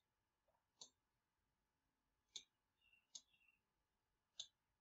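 Four faint, single computer-mouse clicks, spaced irregularly, over near silence.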